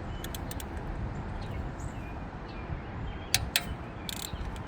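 A few sharp metallic clicks and a short scrape from a socket wrench working a tight, rusted 10 mm coil-pack bolt, over a steady low rumble.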